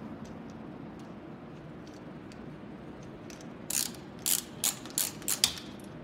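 Tubing cutter clicking as it is worked on a length of steel tubing: faint ticks at first, then about six sharp metallic clicks in quick succession from about four seconds in.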